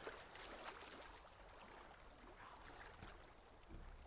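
Near silence, with only a faint water-like ambient wash in the background.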